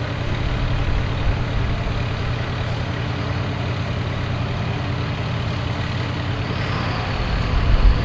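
A heavy engine idling steadily: an even, low rumble that holds unchanged throughout.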